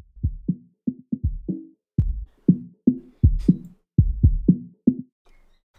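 Electronic drum loop heard through FL Studio's Fruity Multiband Compressor with the mid and high bands muted and only the low band let through. The kick and drum hits come out muffled and bass-heavy, in a quick steady rhythm of about four hits a second.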